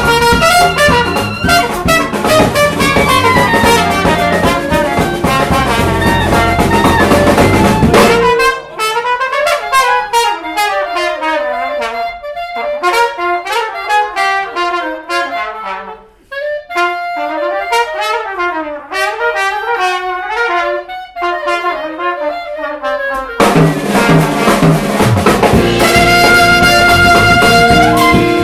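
Small jazz band playing live: trumpet, clarinet, guitar, electric bass and drum kit. About eight seconds in, the bass and drums drop out and a single wind instrument plays fast running lines alone for about fifteen seconds, then the whole band comes back in together.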